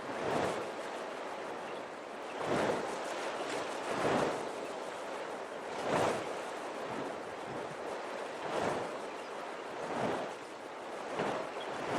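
Small waves washing and splashing, a steady hiss that swells irregularly every second or two.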